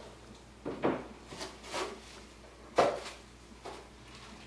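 Unpacking noise on a wooden tabletop: a string of short knocks and rustles as the power adapter and packaging are put down and handled, the loudest knock about three seconds in.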